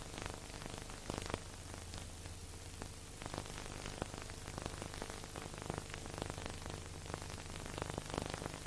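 Crackling surface noise of an old recording: a steady hiss with scattered clicks over a low, steady hum.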